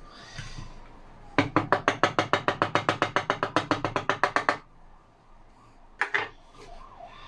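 Plastic dust box of a detail sander knocked rapidly against a workbench to shake out the sawdust, about ten sharp taps a second for some three seconds, then a single knock near the end.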